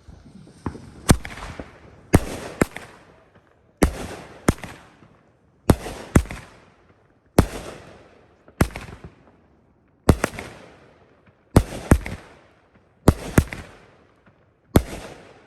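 A 12-shot, 200-gram consumer fireworks cake firing its shots in sequence: sharp reports every one to two seconds, often in close pairs, each trailing off into a fading hiss.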